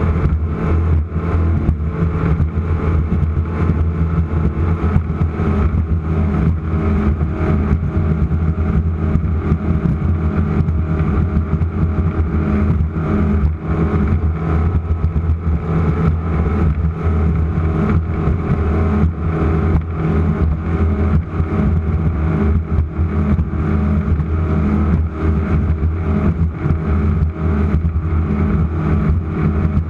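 Offshore race boat's engines running at racing speed: a loud, steady, deep drone that holds its pitch, with constant brief dips and flutter through it.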